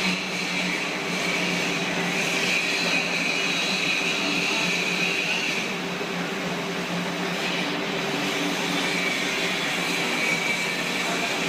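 Steady machinery drone with a low hum and a high whine that swells and fades slightly.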